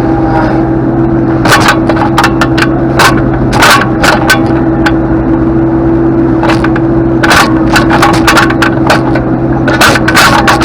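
Skid steer engine running at a steady pitch, with frequent sharp clanks and scraping over it as the machine works.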